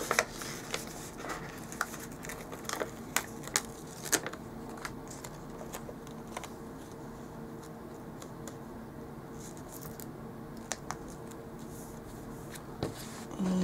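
Paper sticker sheet and planner pages being handled: light crinkles, scrapes and taps as a strip of stickers is laid along the page and pressed down by hand. The sounds are scattered, busiest in the first few seconds with a few more near the end, over a faint steady hum.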